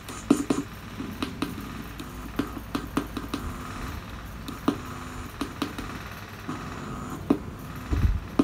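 Intermittent crackles and clicks from a Sony CFS-1000S boombox's audio, with faint low pitched sound between them, as the circuit board by the volume slider is handled: the sign of broken traces and joints at that slider.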